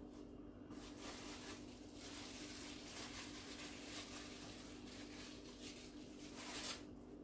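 Faint rustling of plastic packaging being handled, with a slightly louder rustle near the end, over a steady low hum.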